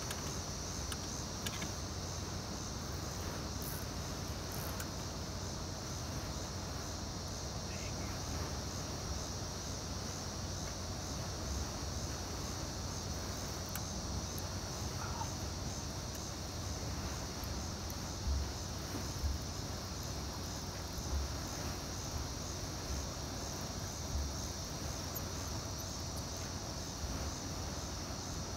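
Steady night chorus of crickets, an unbroken high-pitched trill, over a low rumble with a few soft thumps in the second half.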